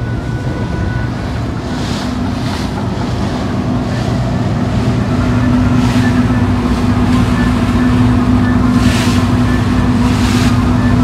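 A cruise boat's engine running with a steady hum, over water rushing along the hull and wind on the microphone, with several short splashy swells of noise.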